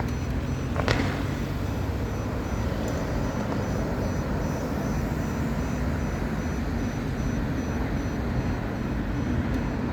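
Fireworks display over a steady rumbling din, with one sharp crack about a second in and no further bangs.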